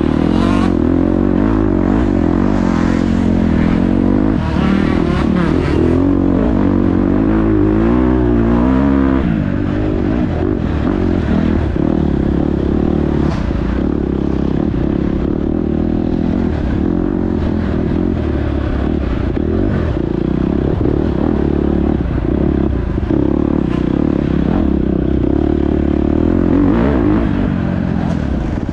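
Dirt bike engine revving up and down continuously while the bike is ridden hard over rough ground, with rattling from the bike. The revving changes most often in the first ten seconds or so, then runs steadier.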